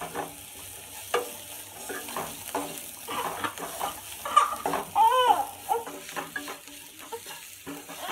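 Wooden spatula stirring and scraping bitter gourd pieces and fried onions around a nonstick pan in uneven strokes, with a light sizzle of oil underneath. A short pitched squeak rises and falls about five seconds in.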